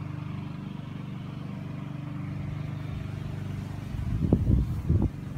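A steady low mechanical drone, like an engine or motor running, holding one pitch throughout. Irregular low rumbles come in about four seconds in.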